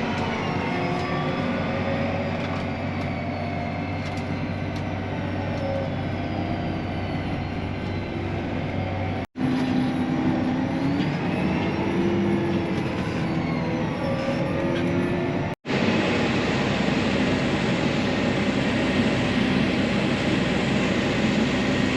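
Heavy harvest machinery running steadily: a deep engine drone with whining tones that drift slowly up and down. It cuts out for an instant twice, about nine and fifteen seconds in.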